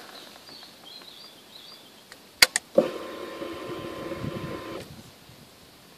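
Ignition switched on on a 2013 Honda CBR1000RR Fireblade: two sharp clicks about two and a half seconds in, then the electric fuel pump whirs steadily for about two seconds as it primes before the start, and stops.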